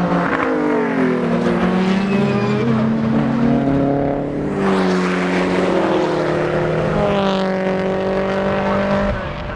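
A time attack race car's engine running hard on track, its pitch rising and falling in steps with the gear changes.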